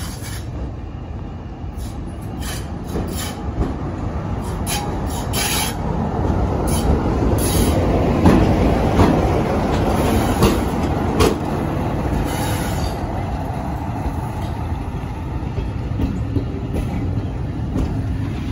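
British Rail Class 33 diesel-electric locomotive, with its Sulzer eight-cylinder engine, running slowly past as it arrives. It is loudest as it draws level about eight to eleven seconds in, with wheels clicking over rail joints and a few short, high wheel squeals.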